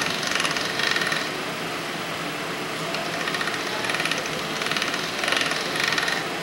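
Hand-cranked steel pasta machine clattering rapidly as its crank is turned, rolling a sheet of pasta dough through the rollers. The cranking stops about a second in, then starts again at about three seconds and runs until shortly before the end.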